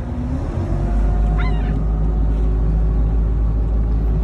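Small boat's motor running with a steady low rumble that steps up in level a little under a second in. A short, high, falling call cuts in about a second and a half in.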